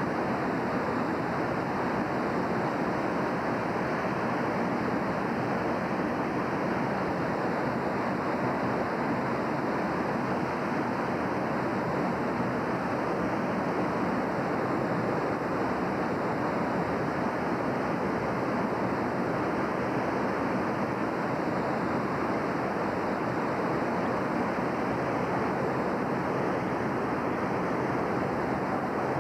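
Steady rushing of the North Fork Wilson River in flood, an unbroken roar of fast water.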